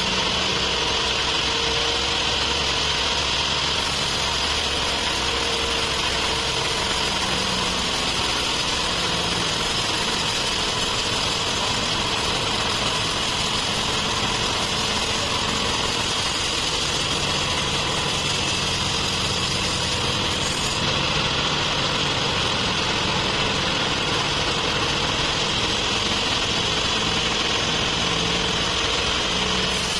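Band sawmill running steadily, its blade cutting lengthwise through a large trembesi (rain tree) log.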